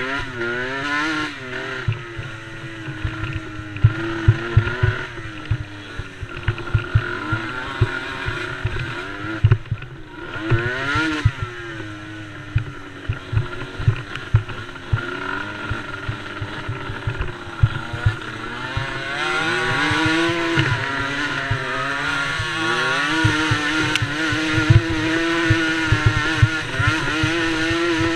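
Small racing engines revving up and down as they accelerate and shift. The pitch rises and falls again and again, with more than one engine audible at times, and it holds high and steady for the last several seconds. Rapid low thumps run underneath.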